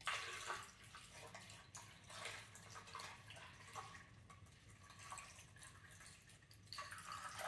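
Water poured from a jug through a plastic funnel into a radiator's filler neck, trickling and splashing faintly as the radiator fills.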